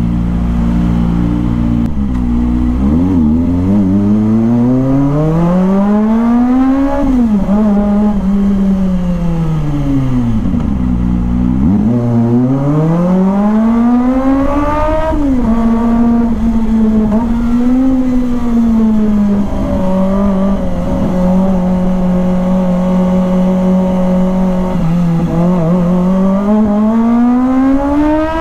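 Kawasaki ZX-25R's 250cc inline-four engine under way, its pitch climbing with the revs and dropping sharply at gear changes about seven and fifteen seconds in. It winds down in between, holds a steady note for several seconds, then climbs again near the end.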